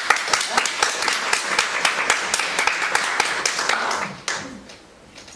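Small audience applauding, with separate hand claps audible, dying away about four seconds in.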